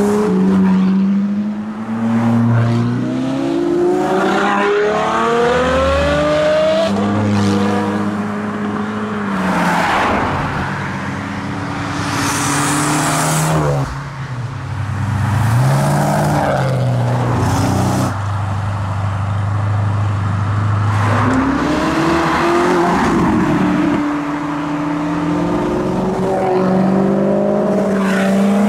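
Several high-performance sports car engines accelerating past one after another. The engine pitch climbs and drops back repeatedly as they shift up through the gears, and some pass-bys carry a rush of exhaust and tyre noise.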